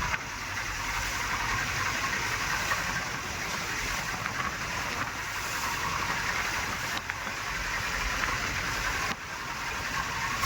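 Motorboat under way: a steady rush of engine and water noise, dipping suddenly for a moment about seven and again about nine seconds in.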